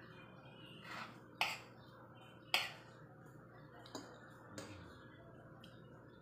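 A metal spoon and fork clinking and scraping against a ceramic plate while eating, about five separate clinks; the loudest comes about two and a half seconds in.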